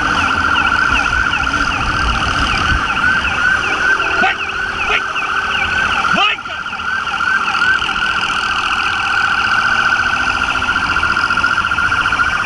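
Police siren sounding in a fast, repeating yelp, with engine and wind rumble underneath during the first half. The sound dips briefly just after six seconds.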